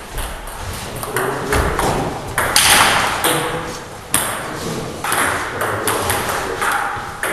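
Table tennis ball clicking off bats and the table at irregular intervals, as a rally plays out and the ball is bounced between points.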